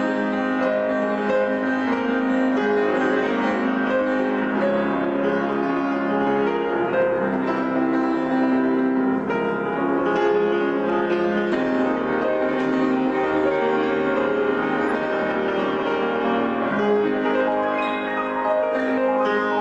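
Instrumental hymn music led by piano, with held chords that change about every second.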